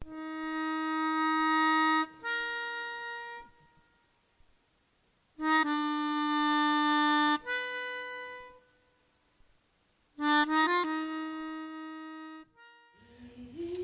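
A solo free-reed instrument plays three short phrases separated by pauses. The first two are each a long held note followed by a shorter, higher one. The third opens with a few quick notes before a long held note.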